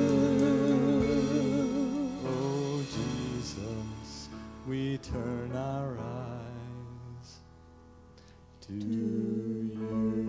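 Live worship band: singers hold a note with vibrato over bass and guitar, then sing a few short bending phrases that fade into a quiet pause. The band comes back in with a sustained chord near the end.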